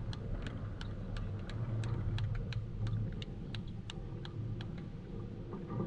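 Light, regular ticking at about three clicks a second over a low, steady rumble; the ticking fades out near the end.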